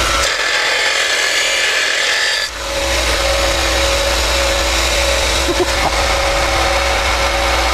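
Belt sander running with a steady motor hum and the hiss of the belt grinding a workpiece; about two and a half seconds in the sound dips briefly and returns with a heavier low hum.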